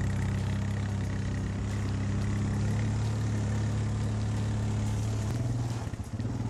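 ATV (quad bike) engine running under way, with a steady low drone whose note rises slightly about five seconds in.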